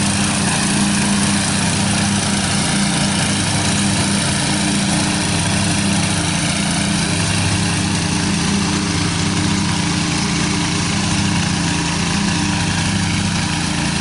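Old Murray riding lawn mower's engine running steadily while it mows grass with its freshly leveled deck.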